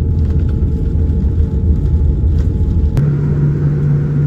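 Cabin noise of a Boeing 787-9 rolling on the ground after landing: a loud, steady low rumble with a faint steady whine above it. About three seconds in, the sound switches abruptly to a steadier low hum.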